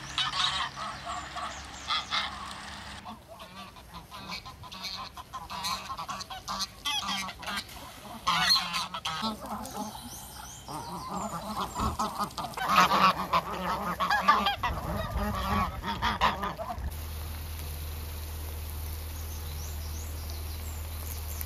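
Domestic geese honking, a flock calling in irregular loud bursts. Near the end the honking gives way to a steady, even sizzle of an egg frying in a pan.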